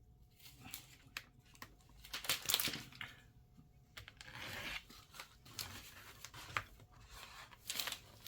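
Hand-handling noises on a workbench: scattered small clicks and short rustling, scraping swishes, the two biggest about two seconds in and about four seconds in, as a laptop and a charger cable are handled.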